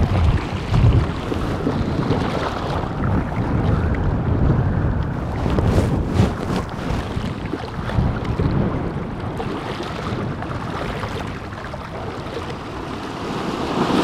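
Small sea waves breaking and washing in over a shore of pebbles and rounded stones, a rushing that swells and ebbs. Wind buffets the microphone, strongest in the first second.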